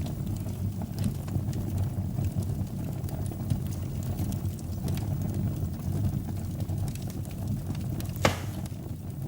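Wood fire burning in a fireplace: a steady low rumble of flame with scattered faint crackles, and one sharper pop near the end.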